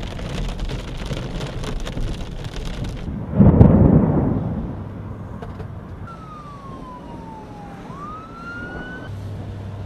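Rain and wind beating on a car while driving through a storm, then a loud rumble of thunder about three and a half seconds in. Later an emergency siren wails, its pitch falling and then rising again.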